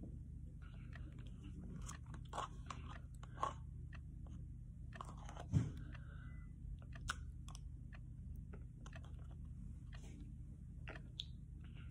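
A person eating ice cream off a plastic spoon close to the microphone: chewing and mouth smacks with small scattered clicks, and one louder thump about five and a half seconds in.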